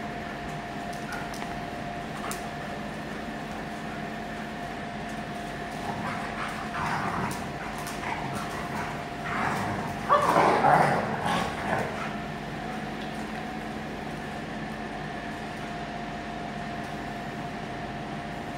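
Two German shepherds vocalising as they play, in short irregular bursts through the middle, the loudest about ten seconds in, over a steady hum.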